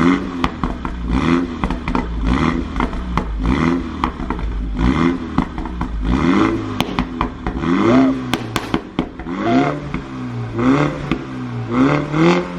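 Background music with a short melodic phrase repeating in a steady rhythm over a beat.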